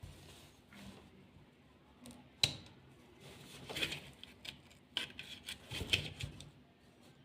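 Faint, scattered clicks and light knocks of small objects being handled, the sharpest about two and a half seconds in.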